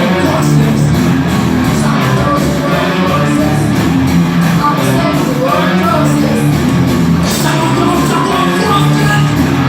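Live rock band playing loud, with guitars, drums and a singing voice.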